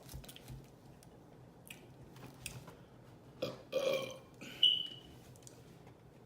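A woman burping from a full stomach: short burps about three and a half seconds in, then a brief high squeaky note that is the loudest moment. Small mouth clicks come before.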